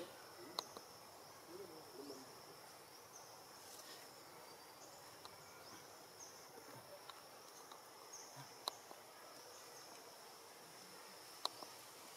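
Faint, steady high-pitched insect chirring, like crickets, with three sharp clicks scattered through it.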